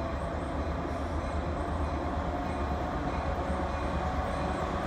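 A train running by at steady speed: continuous rolling noise with a deep drone underneath.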